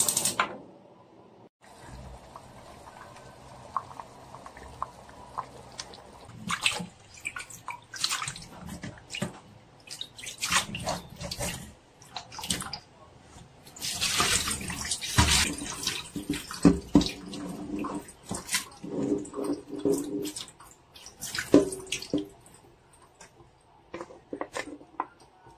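Water splashing and dripping as beef shanks are rinsed by hand in a bowl of water in a stainless steel sink, with scattered knocks and clinks, and a longer rush of water about halfway through.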